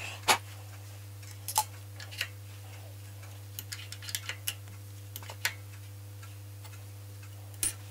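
Scattered metallic clicks and light taps as hands turn and set a dividing head on a drill press table, indexing to the next hole position. The sharpest clicks come just after the start and near the end, over a steady low hum.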